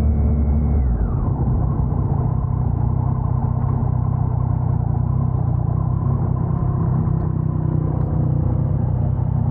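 Motorcycle engine and road noise heard through a lavalier mic inside the rider's helmet while riding. The engine note falls about a second in, as it slows or shifts, then runs steadily at lower revs.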